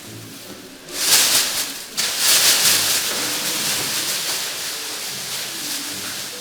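A loud hissing rush of noise that rises suddenly about a second in, dips, surges again a second later and then slowly fades.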